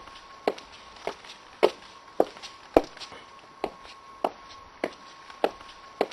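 Footsteps at an even walking pace, just under two steps a second, each a sharp knock, with one slightly longer pause about three seconds in. A faint steady tone sounds beneath them.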